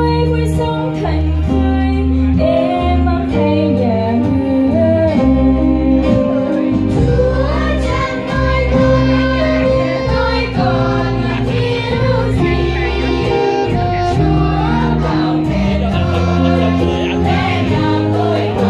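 Children's choir singing a hymn in unison with instrumental accompaniment of sustained low notes.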